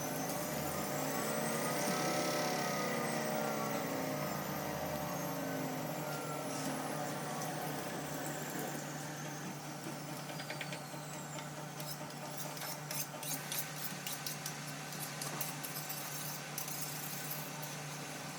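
A motor vehicle passes by, its engine pitch rising as it approaches and falling slowly as it moves away. Scattered light clicks and taps follow in the second half.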